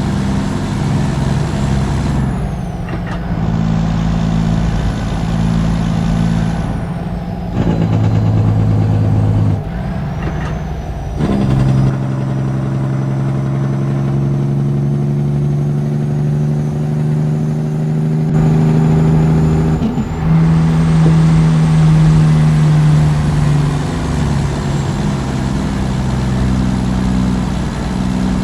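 Volvo FH truck engine running through a straight-through exhaust with no muffler. The exhaust note holds steady, then steps to a new pitch several times, and rises slowly over one long stretch in the middle.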